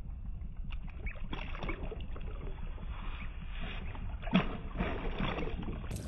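Water splashing and sloshing at the side of a wooden boat as a small giant snakehead is released and kicks away, with one louder splash about four seconds in. Under it is a low steady rumble, and the whole stretch sounds dull and muffled.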